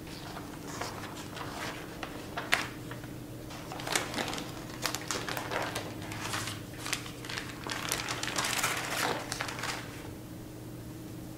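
Irregular crinkling and rustling with light, crisp taps, from hands handling things while making a roll cake.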